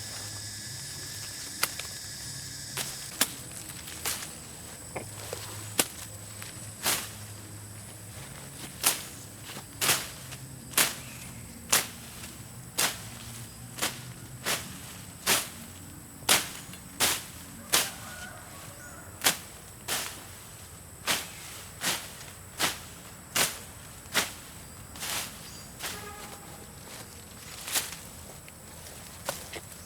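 Sharp knocks or strikes repeated about once a second, slightly irregular, over a steady high-pitched whine.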